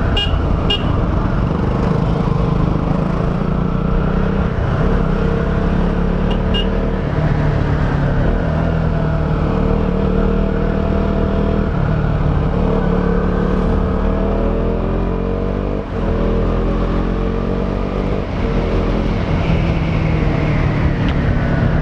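KTM Duke 200's single-cylinder engine through its stock exhaust, under way and revving up and easing off, its pitch rising and falling several times. There are two short dips in level about 16 and 18 seconds in.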